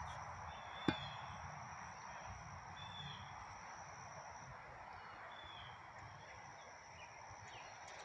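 Quiet outdoor background with a steady hiss, a few faint bird chirps, and a thin steady high tone that stops about halfway through. A single sharp click comes about a second in.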